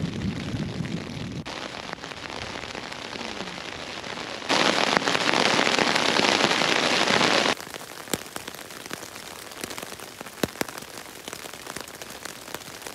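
Heavy rain falling on a backpacking tent. A much louder stretch of about three seconds comes near the middle, and after it single drops tick sharply on the fabric.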